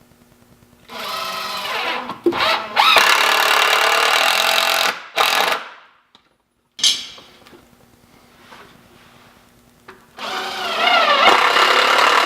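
A cordless drill-driver driving screws into the wooden workbench frame: two long runs, the motor's whine climbing in pitch as each starts and then holding high while the screw goes in.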